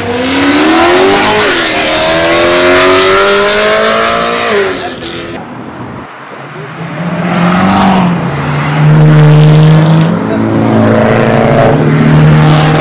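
Car engines accelerating hard. The first revs up with its pitch climbing steadily, dips briefly about a second and a half in, climbs again, and cuts off after about five seconds. A few seconds later a second, lower engine note comes up loud and holds fairly steady to the end.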